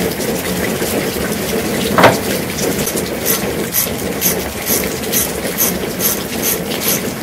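A ratchet wrench with a Torx E6 socket working a carburetor bolt loose: one sharp clink about two seconds in, then steady ratchet clicks about two to three a second, over a steady rushing background noise.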